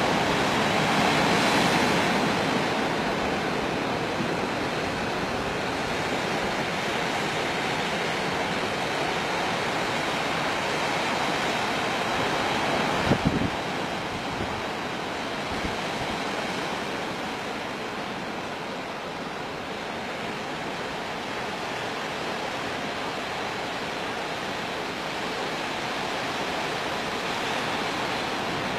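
Steady rushing noise of sea surf and wind on the microphone along an open shore, with a brief thump about halfway through.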